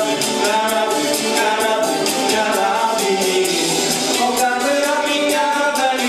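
Two male voices singing a pop song into microphones over a backing track with a steady beat.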